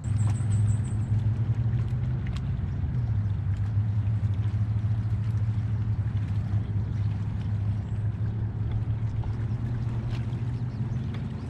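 Small boat's bow-mounted electric trolling motor running with a steady low hum, with a few faint clicks over it.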